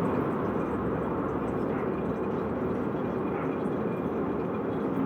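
Peugeot 206 RC in motion, with a steady drone from the drive shaft's intermediate (centre) bearing mixed with road noise; the noise is the sign of a worn intermediate bearing. The sound holds even throughout, without changes in pitch or level.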